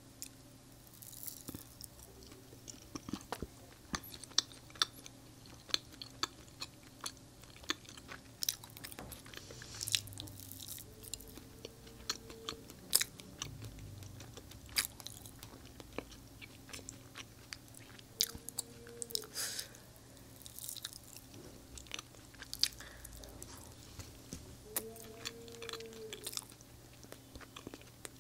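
Close-miked chewing of Indian sweets, with wet mouth sounds and many sharp smacks and clicks.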